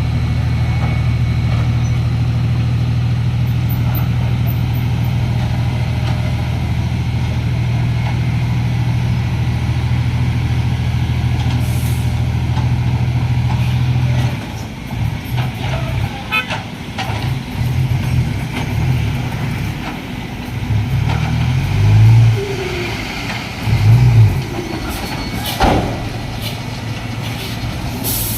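Isuzu Deca FXZ 360 heavy truck's diesel engine running at a steady idle, then from about halfway revving in uneven surges, the loudest two a few seconds before the end. A short air hiss comes right at the end.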